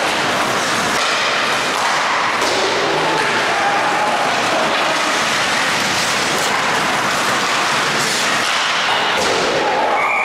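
Ice hockey play on a rink: a steady scrape and hiss of skates on the ice, with occasional knocks and thuds of sticks, puck and players against the boards.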